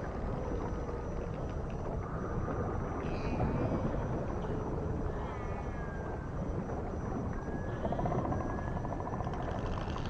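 Dolphins whistling and clicking: thin rising, falling and warbling whistles, with a rapid buzz of clicks near the end, over a steady low rumble.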